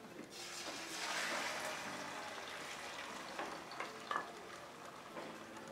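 Beaten eggs with sliced tomato and onion poured into hot oil in a stainless steel frying pan, sizzling: the hiss swells about a second in and then slowly eases off, with a couple of light taps near the middle.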